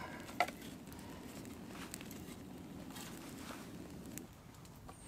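Small wood campfire crackling, with a few sharp clicks and knocks of dry sticks being leaned onto it in a teepee, over a low rustle that stops about four seconds in.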